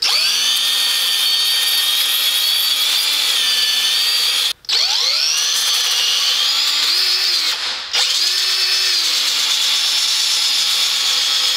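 Cordless DeWalt drill spinning a small hook-and-loop sanding disc against an alloy wheel's rim lip, grinding down curb rash with 80-grit paper. The motor whines steadily, stops for a moment about four and a half seconds in, then spins back up rising in pitch. It eases off briefly again near eight seconds and picks up.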